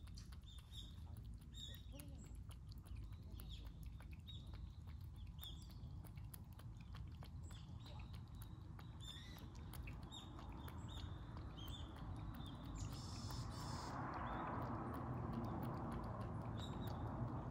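Small birds chirping in short, repeated high notes over a low background rumble, with scattered faint clicks. A hiss swells from about two-thirds of the way in.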